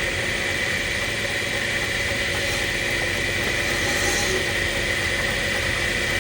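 Electric motor of a wood lathe running steadily, with a constant high whine.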